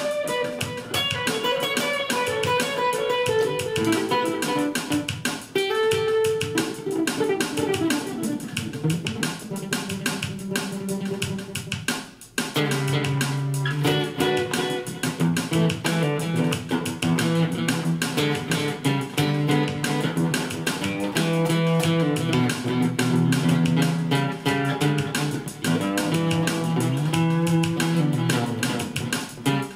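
Solo guitar playing a funk jam in picked single-note lines. About twelve seconds in it briefly cuts out, then comes back with a lower, heavier repeating riff.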